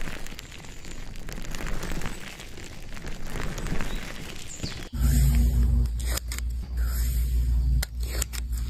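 Fine crackling and crunching as fingertips press and rub into black textured sponge pads. About five seconds in it switches to a louder sound with a deep low hum and a few clicks.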